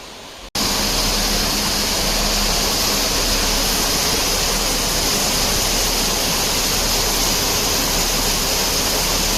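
Steady, loud rushing of water that starts abruptly about half a second in.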